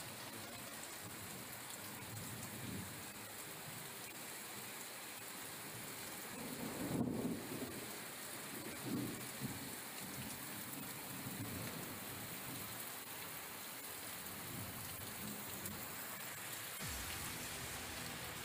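Steady rain falling, heard as an even hiss, with a low rumble about seven seconds in and a shorter one about two seconds later.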